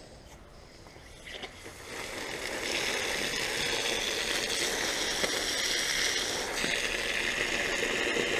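Water rushing out of a garden hose as the tap is opened, building up over a second or so and then running steadily: rusty water being flushed out of the bore pump line.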